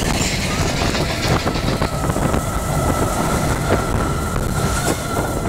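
Mine-train roller coaster running along its track: a dense rumble with rapid clattering from the wheels and wind rush. A steady high-pitched tone joins about a second in.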